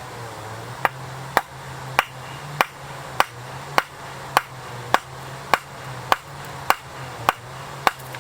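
A steady series of about thirteen sharp knocks, evenly spaced a little under two a second, over a constant low hum.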